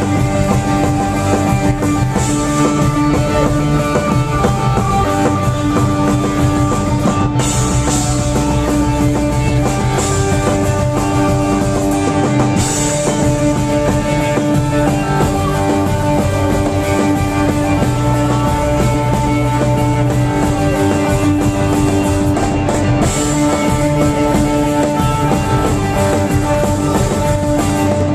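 Live rock band playing a song: guitar over a drum kit, loud and steady.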